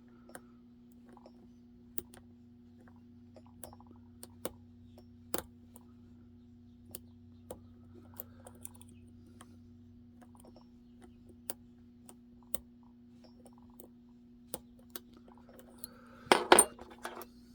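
Scattered small metallic clicks of lock picks working the pins inside an Assa Twin 6K lock cylinder, with a louder clatter of metal near the end. A steady low hum runs underneath.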